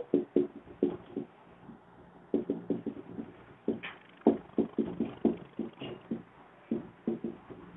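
Marker writing on a whiteboard: a string of short, irregular strokes and taps, with brief pauses between words.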